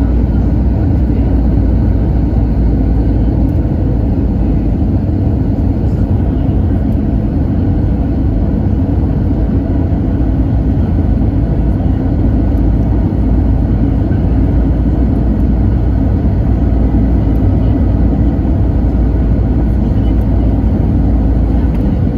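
Steady low rumble of an Airbus A320 airliner's cabin in flight: engine and airflow noise, even and unbroken throughout.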